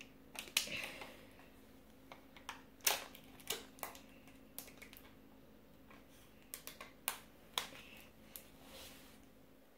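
Irregular small plastic clicks and snaps as fingers pick at and pry a Kinder Joy egg's plastic toy capsule, which is hard to open; the sharpest click comes about three seconds in.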